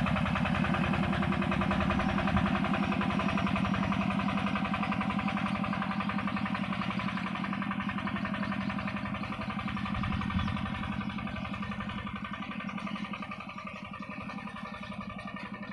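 Yanmar walk-behind hand tractor's single-cylinder diesel engine chugging steadily as the tractor works through the rice field, growing fainter as it moves away.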